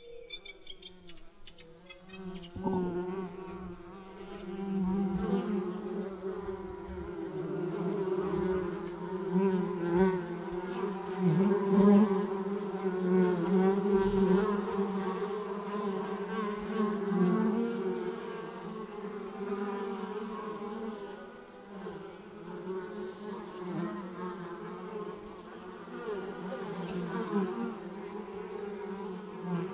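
Many bees buzzing together in a low, wavering hum that comes in about two and a half seconds in, then swells and ebbs.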